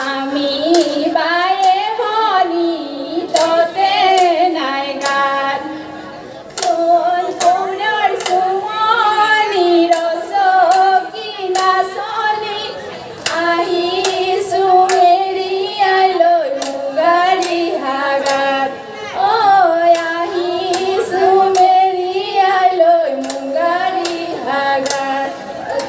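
Group of women singing an Assamese Bihu song in unison, accompanied by a steady beat of hand claps.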